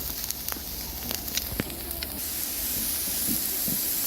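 Lamb shoulder rack sizzling on a barbecue grill, a steady hiss with scattered sharp pops of spattering fat.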